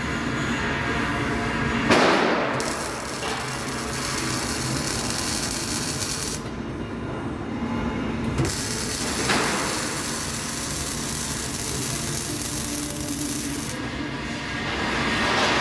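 Electric arc welding: a steady crackling hiss over a low hum, with a sharp knock about two seconds in and again near the middle. The crackle drops out twice for a couple of seconds, as when the arc is broken between welds.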